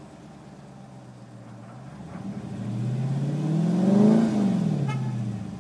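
2012 Chrysler 300 SRT8's 6.4-litre Hemi V8 idling, then revved once in Park from inside the cabin. The engine note rises for about two seconds to around 3,000 rpm, then falls back toward idle near the end.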